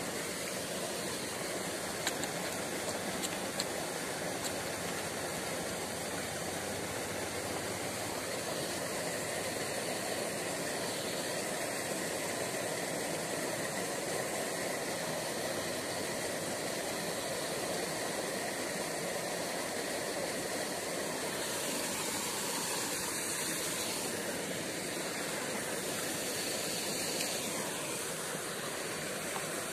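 Steady, even hiss of background noise at the riverbank, with a few faint clicks in the first few seconds.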